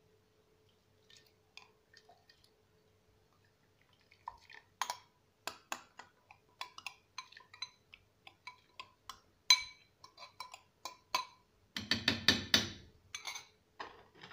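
Metal spoon clinking and scraping against a ceramic bowl as wet cracked wheat is scraped out of it into a pot, a string of light sharp clinks with a denser clatter near the end.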